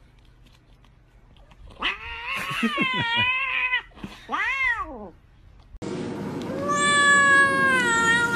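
Domestic cat yowling: a wavering, wobbling call, then a short meow that rises and falls. After a cut, a cat gives one long, drawn-out yowl that slowly falls in pitch.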